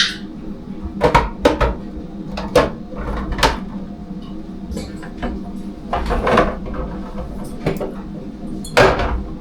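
Kitchen clatter: dishes and containers knocked and set down while the refrigerator and kitchen are cleaned, a scattered series of sharp knocks over a steady low hum.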